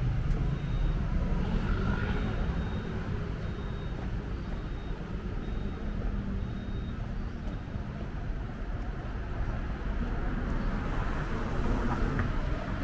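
City street traffic: a steady rumble of passing vehicles, getting louder again near the end.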